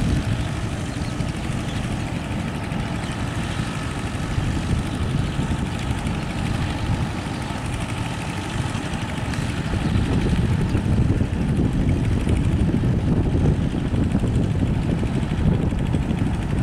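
TAFE 5900 DI tractor's diesel engine running steadily under load as it pulls a rotary tiller through a flooded paddy field, getting louder about ten seconds in.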